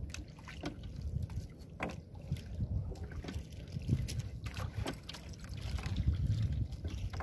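Low, uneven rumble of wind on the microphone and water around a small boat, with scattered light clicks and knocks.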